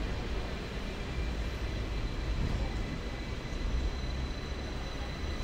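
Hong Kong double-decker electric tram running along its street track, heard from on board as a steady low rumble of wheels and motors.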